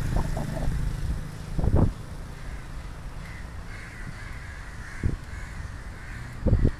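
A motorcycle engine rumbling low for the first couple of seconds, then a rapid run of short, high squawks, about three a second, over steady road and wind noise. Several loud thumps break through, the loudest near the end.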